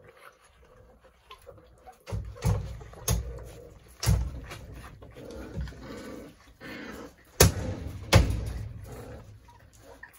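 Doberman puppies eating kibble from plastic slow-feeder bowls on a wooden floor: scattered clatter and sharp knocks starting about two seconds in, the two loudest knocks a little before the end.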